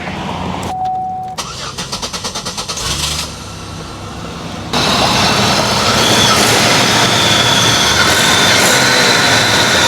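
Buick LeSabre engine being started after a misfire repair: a short steady tone, then the starter cranking in quick even pulses for about two seconds, and the engine catches and runs steadily from about halfway on, the misfire cured.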